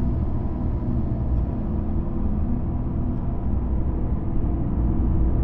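Dark ambient drone: a steady deep rumble layered with long-held low tones, with no beat or breaks.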